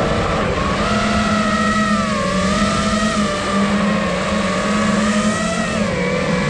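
Five-inch iFlight Nazgul Evoque F5 freestyle FPV quadcopter's brushless motors and propellers whining steadily, the pitch wavering up and down with throttle changes.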